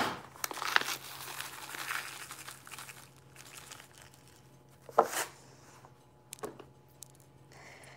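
Plastic bag crinkling and rustling as it is handled, easing off after about three seconds, then a short sharp sound about five seconds in and a softer one shortly after.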